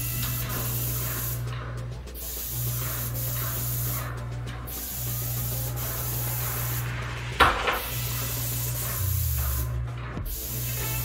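Airless paint sprayer with a 310 fine-finish tip spraying enamel onto a wall: a steady hiss in passes of about two and a half seconds, with brief breaks between them as the trigger is let go. A single sharp click about seven seconds in.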